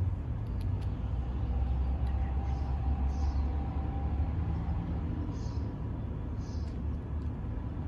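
A steady low rumble, with a few faint, short, high chirps scattered through it.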